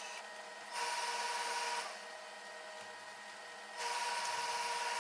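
Hose-fed tailor's steam iron releasing steam in two hissing bursts of about a second each, the second about three seconds after the first, over a faint steady hum.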